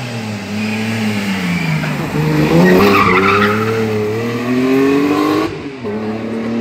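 Rally car's engine coming off the throttle as it brakes into a junction, then accelerating hard away with a gear change about five and a half seconds in. A short tyre squeal about two and a half seconds in, as the car turns.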